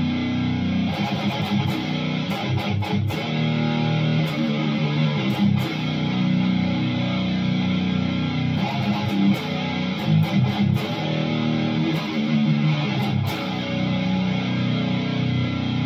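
Heavily distorted ESP LTD F Black Metal electric guitar, dropped to G sharp with its D-tuner, playing low, heavy riffs through a Line 6 Helix LT into a Marshall 2x12 cabinet. Long ringing low chords alternate with bursts of fast picked chugging.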